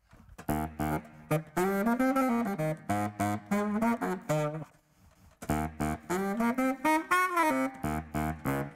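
Baritone saxophone playing a short melody of low, raspy notes, mostly short and separate: one phrase, a brief pause about five seconds in, then a second phrase.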